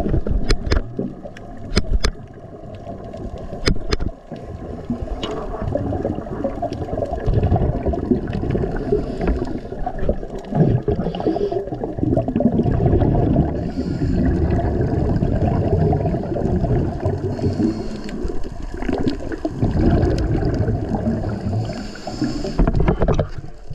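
Muffled underwater churning and gurgling of water and scuba exhaust bubbles, with a handful of sharp clicks in the first few seconds.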